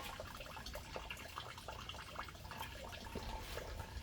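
Antifreeze dripping from the radiator in irregular, faint little drips.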